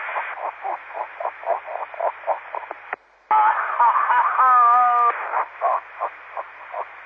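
Amateur FM repeater audio, narrow and hissy: a run of short muffled bursts, then a brief cut about three seconds in as one transmission drops and another keys up. A squeaky warbling tone follows for about two seconds, then more bursts. The squeaks and noises are a jammer's deliberate interference on the repeater.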